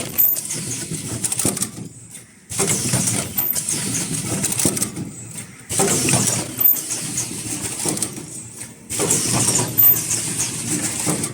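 Automatic cup-shape mask headband welding machine running through its cycle, repeating about every three seconds. Each cycle starts suddenly with a brief very high-pitched squeal, followed by mechanical clatter and hiss.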